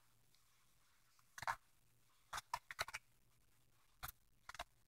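Pages of a thick paperback textbook being turned by hand: short, papery flicks and rustles, one about a second and a half in, a quick run of several near the middle and a few more near the end, with quiet between.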